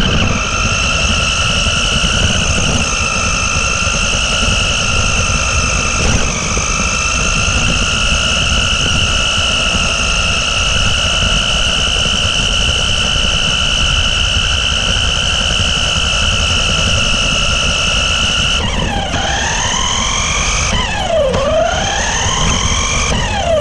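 RC buggy driving, heard from a camera mounted on it: its motor and gears give a steady high whine over a low rumble of tyres on pavement and wind. Near the end the whine swoops down and back up several times as the buggy slows and speeds up.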